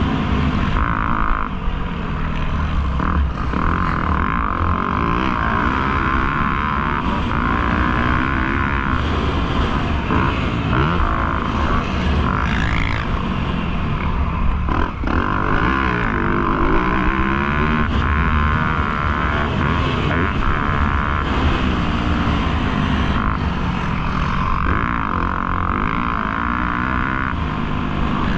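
Motocross dirt bike engine revving hard and falling off again and again as the bike is ridden around the track, heard close up from an onboard GoPro.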